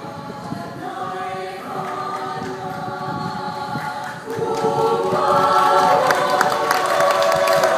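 Mixed choir of men's and women's voices singing, swelling louder about four seconds in, with short sharp knocks over the louder part.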